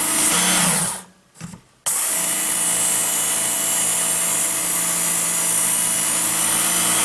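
WorkSharp electric belt knife sharpener running with a steady whir. It stops about a second in, with a short blip during the gap, and starts again about a second later, then runs steadily.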